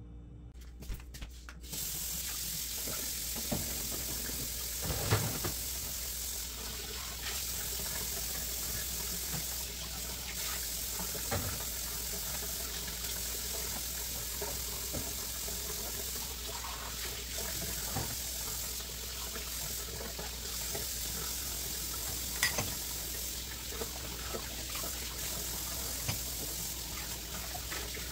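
A kitchen tap runs steadily into a sink, starting about two seconds in. Dishes and mugs knock now and then against each other and the dishwasher rack.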